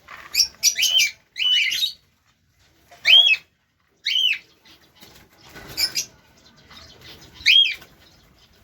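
Pet aviary birds calling: a series of short, loud chirps, each rising and then falling in pitch, repeated at uneven gaps of about a second.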